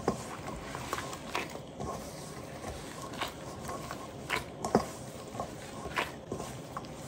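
Gloved hands squeezing and kneading damp glutinous rice dough in a stainless steel bowl: soft squishing with scattered light clicks at irregular moments.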